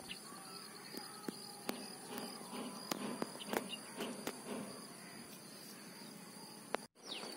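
Steady high-pitched trilling of crickets or other insects, with scattered clicks and rustles of someone walking through dry brush and a few short bird chirps. The sound drops out briefly near the end.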